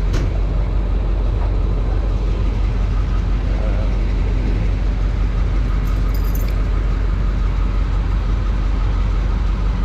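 A car engine idling with a steady low rumble, with one sharp click right at the start.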